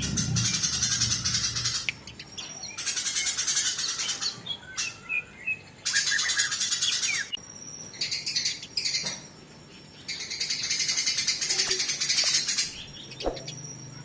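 Eurasian tree sparrows fighting: rapid, dense chirping chatter in several bursts of a second or two, broken by short pauses with a few single chirps.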